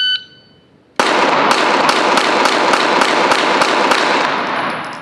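A shot timer gives a short high start beep, and about a second later a Smith & Wesson M&P 2.0 9mm pistol fires a rapid string of ten shots, roughly three a second, echoing in an indoor range; the string ends about four seconds after the beep, making a timed drill.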